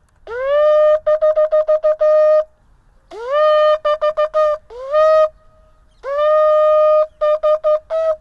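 Small sterling-silver-covered shofar blown in three calls. Each call scoops up in pitch into a held note, then breaks into a quick run of short, clipped blasts.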